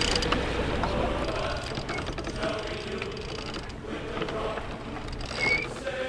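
Sailboat winch being cranked, its pawls clicking irregularly as a crew member is hoisted up the mast on a halyard, over steady wind and sea noise. A short rising squeak comes near the end.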